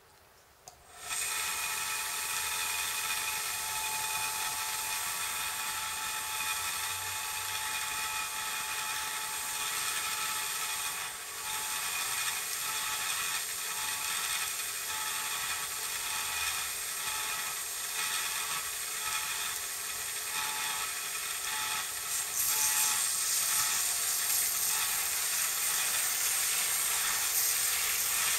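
Electric mitre saw running with a steady whine, its spinning blade grinding at the end of a Tasmanian oak pole to shape it; the sound grows louder and harsher near the end.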